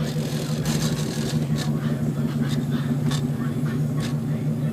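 Car engine running steadily with an even low hum, with a few short light clicks over it.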